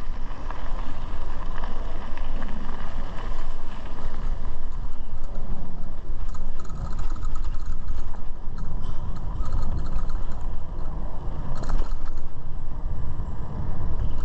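Wind rumbling over the microphone of a camera on a moving bicycle, mixed with tyre noise on a dirt and gravel trail. A brief clatter comes near the end.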